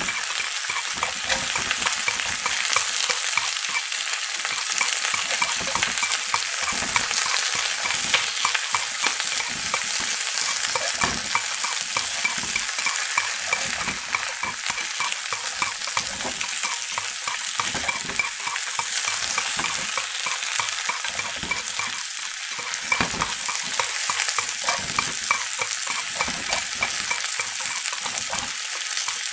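Chicken frying in hot oil: a steady sizzle with constant small crackling pops.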